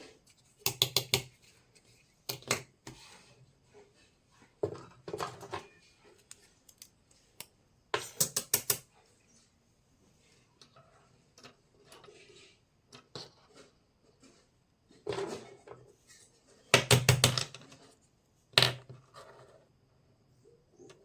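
Small toy kitchenware pieces from a miniature kitchen set clicking and clattering together as they are handled. The sound comes in short bursts of rapid clicks, separated by quiet gaps.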